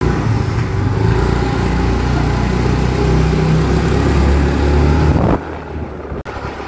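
Scooter engine running under way, its pitch climbing slowly as it gathers speed, then falling away abruptly about five seconds in.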